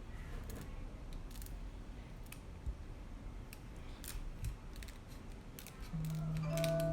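Light, scattered clicks and scrapes of small tools prying the screen off an iPhone XS. About a second before the end, a steady low tone comes in.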